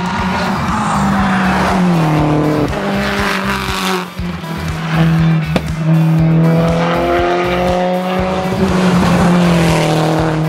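Subaru Impreza WRX STI rally car's turbocharged flat-four engine running hard at speed. The engine note drops a couple of times as it shifts or lifts into bends, then climbs again near the end.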